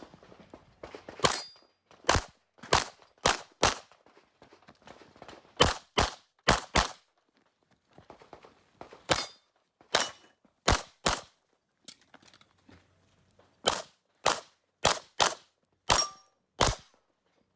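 Pistol fired rapidly in an IPSC stage: about twenty sharp shots in quick strings of two to five, with short pauses between strings. A few shots are followed by a brief metallic ring.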